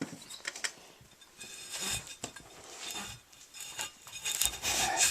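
Handling noise from hand work on an ATV tire and rim: scattered small clicks and clinks with some rubbing, busiest about two seconds in and again near the end.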